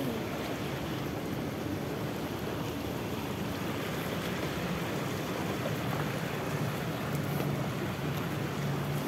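Small fountain jets splashing steadily into stone-walled pools, with wind buffeting the microphone. A faint low hum comes in over the second half.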